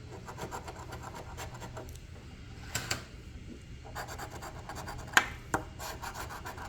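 A scratch-off lottery ticket's coating being scraped off in runs of quick, rapid strokes, with a couple of sharper clicks, about three and five seconds in.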